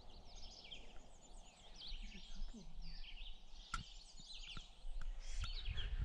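Several songbirds chirping and singing at once in a busy morning chorus, over a low background rumble, with a few sharp clicks.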